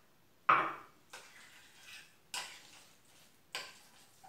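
A mug set down on the counter with one sharp knock about half a second in, then a spoon clinking a few times against a glass dish as guacamole is stirred.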